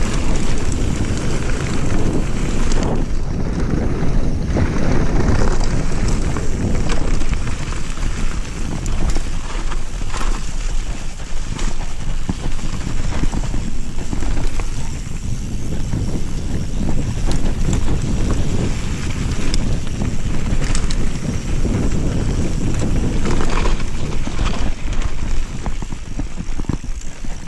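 Wind buffeting the action camera's microphone over the rumble of a Cube Stereo 160 full-suspension mountain bike's tyres on a dirt and gravel trail, with frequent clicks and rattles from the bike over bumps.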